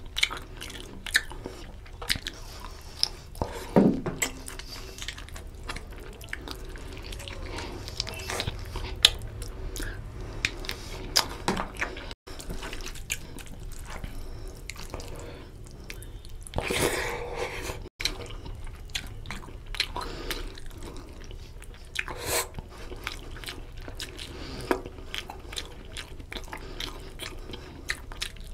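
Close-miked eating sounds: wet squelching as rice and oily chicken curry are mixed by hand on a steel plate, with chewing and lip smacks in many short, irregular clicks. Twice the sound breaks off for a split second.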